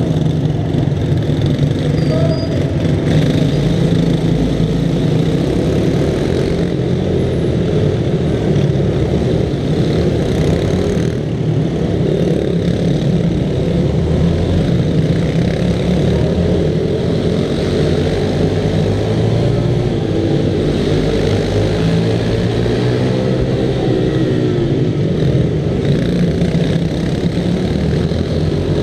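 Small-displacement minibike engine running hard through a race lap, its pitch rising and falling as the throttle opens and closes, with the engines of other minibikes running close by.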